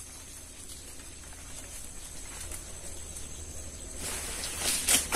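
Quiet outdoor background with a faint steady high whine. Near the end comes a sharp thud: santol fruit dropping from the tree and hitting the ground.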